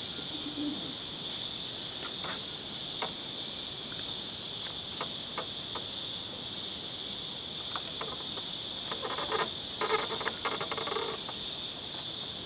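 Steady high-pitched chorus of forest insects, unbroken throughout. Scattered short knocks sound over it, with a cluster of louder ones about three quarters of the way through.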